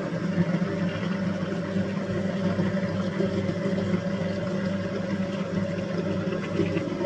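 Electric noodle machine's motor running with a steady hum while dough is fed between its steel rollers and pressed out as a sheet.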